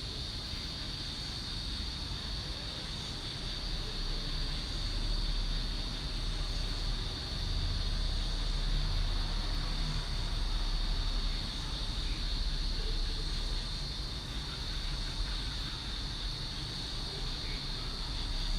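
A continuous chorus of crickets chirping at night: a steady high-pitched trill. Underneath runs a constant low rumble.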